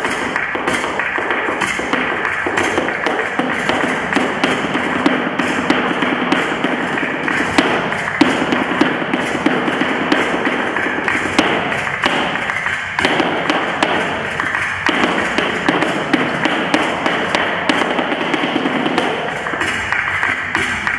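Flamenco dance shoes tapping and stamping on the floor in irregular footwork, over soleá music.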